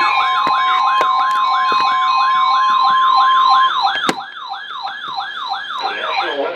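A siren wailing rapidly up and down, about four sweeps a second, over a steady emergency alert tone near 1 kHz. The steady tone stops a little past halfway, a sharp click comes about four seconds in, and a voice starts under the siren near the end.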